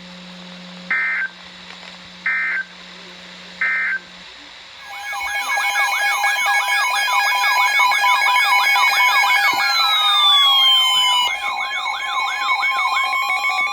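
Three short buzzing Emergency Alert System data bursts over a low hum and hiss, then, about five seconds in, a loud layered mix of electronic siren-like alert tones: several wails sweeping up and down about twice a second, steady beeps and falling glides sounding together.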